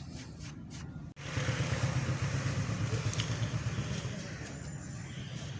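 A motor vehicle engine running, which comes in suddenly about a second in and holds a steady low rumble, with faint clicks before it.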